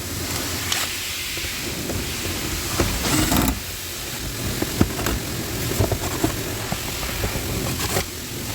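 A Nissan X-Trail's dashboard AC blower fan running with a steady rush of air, broken by irregular clicks and rattles.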